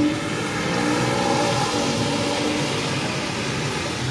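Street traffic on a rain-wet road: a car's engine with its tyres hissing on the wet pavement, swelling a little about a second in and then easing off.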